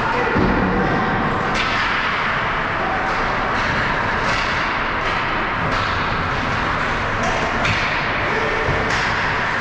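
Ice hockey game in play in a rink: a steady wash of rink noise with several sharp knocks of sticks and puck spread through it.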